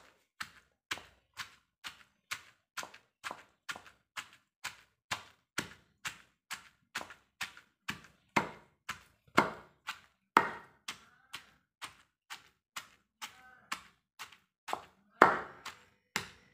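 Wooden pestle pounding green chillies in a stone mortar: steady thuds a little over two a second, with a few harder strikes now and then, as the chillies are crushed for a hand-pounded chutney.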